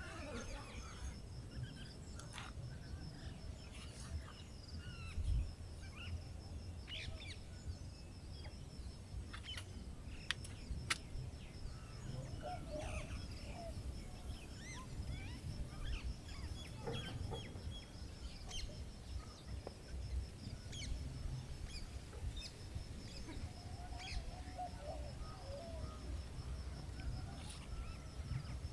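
Birds calling in short, scattered calls over a steady high, pulsing trill, with a low rumble underneath and a couple of sharp clicks about ten seconds in.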